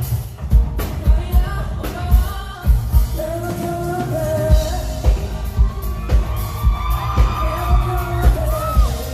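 Live pop-rock band playing with a sung lead vocal over a steady drum beat, at the full volume of a sound check run-through.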